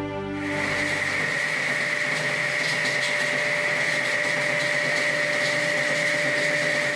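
A machine running steadily: a constant whine over an even hiss, cutting off suddenly at the end.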